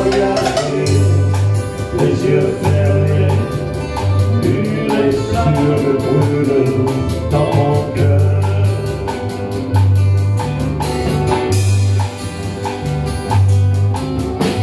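Small acoustic band playing an instrumental passage between verses: strummed acoustic guitars, one of them a Gypsy-jazz guitar, over a bass line and a drum kit keeping a steady beat.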